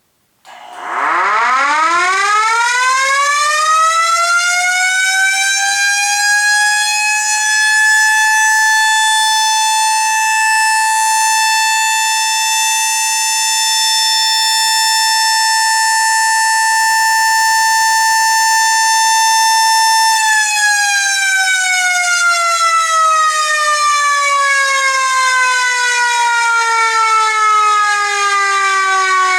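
Federal Model E mechanical siren, its head modified to run on a Kirby vacuum cleaner motor with a new flywheel, spinning up: a wail that climbs steeply in pitch over the first few seconds and settles into a steady high tone. About 20 seconds in the pitch starts sliding slowly down as the siren winds down.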